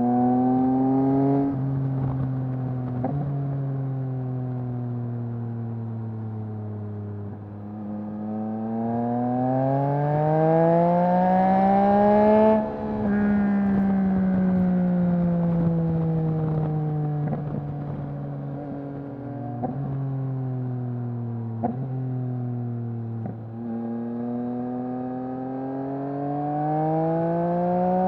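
Yamaha MT-09's three-cylinder engine through a Mivv full-system exhaust, under way: revs climb, fall with a sudden drop at a gear change about halfway through, then ease off with a few sharp pops on the overrun before climbing again near the end.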